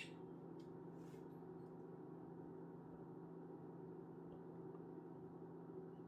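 Near silence: a steady low room hum, with a few faint, short, high-pitched sounds in the first second or so.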